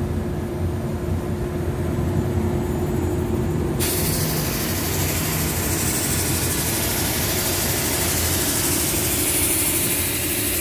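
Brush sander running with a steady hum and a held tone. About four seconds in, a loud, even hiss joins it and holds.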